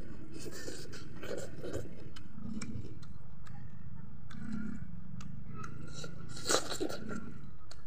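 Close-miked chewing of food eaten by hand. About six and a half seconds in comes a sharp, louder bite into a piece of chicken curry.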